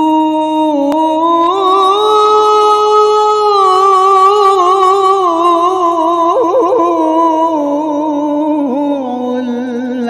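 A solo voice singing long, held, melismatic notes in an Arabic devotional style, the pitch stepping up about two seconds in and sliding back down, with a fast warbling run around six seconds in.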